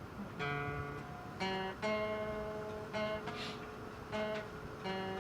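Acoustic guitar strumming single chords, a new stroke about every second and each left to ring, over a steady hiss from an old home cassette recording.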